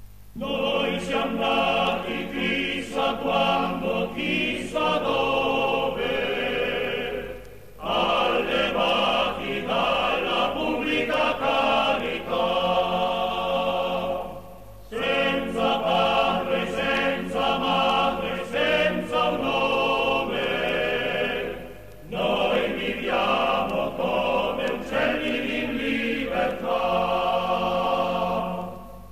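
Choir singing in four long phrases of about seven seconds each, with short breaks between them.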